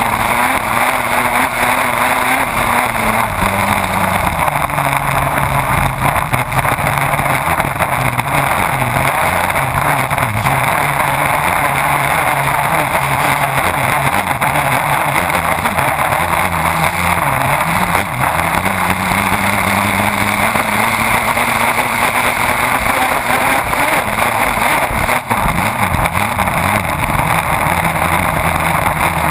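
Race boat's engine running hard at speed under a loud, continuous rush of water spray and wind at the stern. The engine note drops a few seconds in, then climbs again past the middle and eases off near the end.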